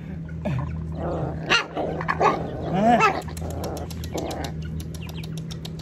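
Dogs barking and yelping in a short burst of calls between about one and a half and three seconds in, one call rising and falling in pitch.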